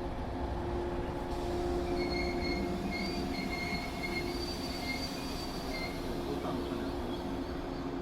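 Electric train running past, with a steady hum and a thin, high wheel squeal that comes and goes through the middle of the pass.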